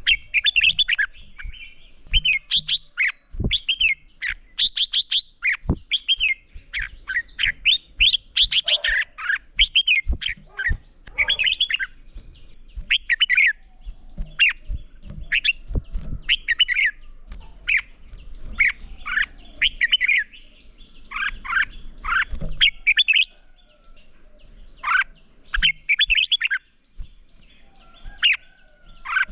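Red-whiskered bulbuls singing: loud, fast runs of short chirping, whistled phrases with only brief gaps, the excited competition song that bird keepers call fighting song. A few soft knocks sound in between.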